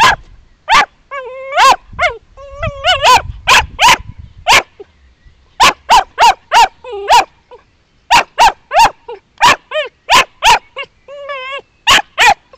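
Sealyham terrier puppy barking in quick runs of short, sharp barks, broken by a few high, wavering whines, as it works a cage baited with artificial fox scent and rabbit skin.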